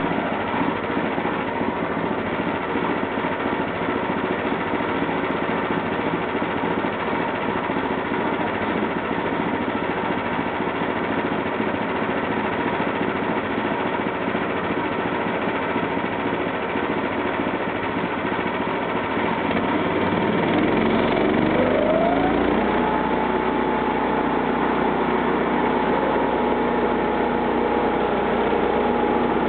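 The 13 HP gasoline engine of a homemade band sawmill running steadily at low speed, then speeding up about two-thirds of the way through, its pitch rising and the sound getting a little louder, and holding at the higher speed.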